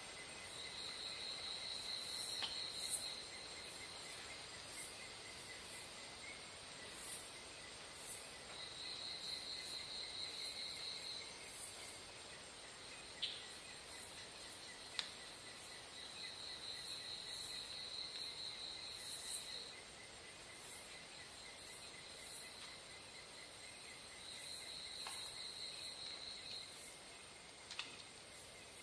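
Insects calling: one trills in four bouts of about two and a half seconds each, over a steady high-pitched buzz from others, with a few faint sharp clicks.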